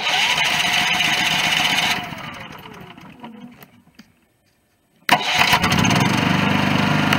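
Firman 3650 inverter generator being electric-started: the starter cranks the engine for about two seconds, then lets go and the engine spins down with a falling pitch without staying running. About five seconds in it cranks again, and the engine catches and settles into a steady run.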